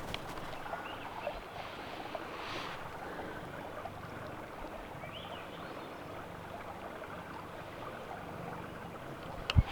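A few faint bird whistles, one rising and falling about five seconds in, over a steady quiet background hiss. A single sharp thump sounds near the end.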